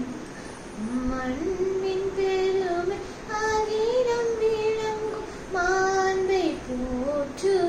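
A young girl singing a Tamil Christian hymn to Mother Mary solo without accompaniment, holding long notes and sliding between pitches in phrases separated by short breaths.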